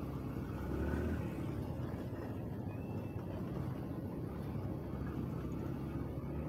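Small motorcycle engine running at low speed in slow city traffic, a steady low rumble mixed with the engines of nearby motorcycle tricycles and cars.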